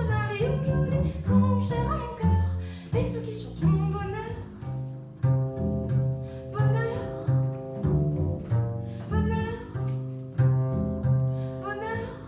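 Solo double bass played pizzicato, a steady pattern of plucked low notes, with a woman singing over it and holding long notes with vibrato.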